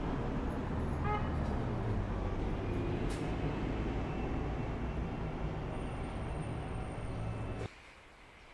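City street traffic with a bus passing close by, a steady low engine rumble. Near the end it cuts off suddenly to a much quieter street hush.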